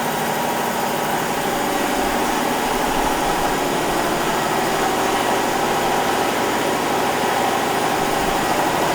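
2010 Haas ST-20 CNC turning center running, a steady mechanical hum with several fixed tones over an even whir.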